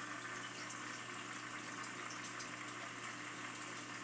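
Aquarium water circulation: a steady bubbling, trickling rush of water, with faint tiny ticks and a low steady hum underneath.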